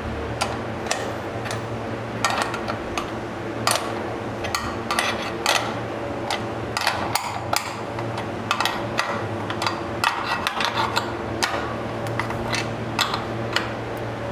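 Steel spanner clinking against a nut and bolt on the bench's mild-steel seat bracket as it is tightened by hand. The clicks are sharp, metallic and irregular, often in quick clusters, over a steady low hum.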